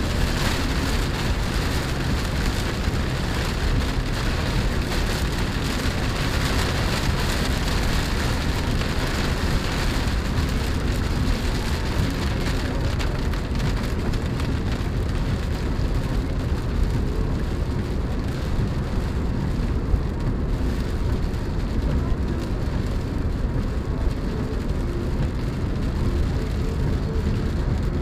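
Steady running and road noise heard inside a Chevrolet Spark's cabin as it drives, with an even crackling hiss over it, like rain or wet grit on the car, that eases off about halfway through.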